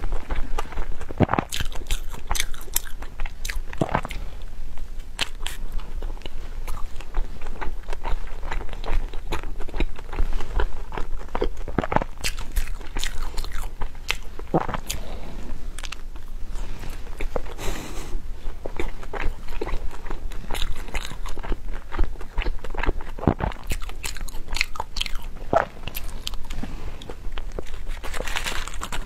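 Close-miked eating: biting into and chewing a mochi dumpling with purple rice, many short scattered mouth clicks and smacks, over a steady low hum.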